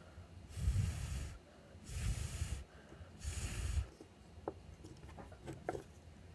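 Three short puffs of breath blown at the microphone, each under a second long and about a second apart, with a breathy hiss and a rumble of air hitting the mic.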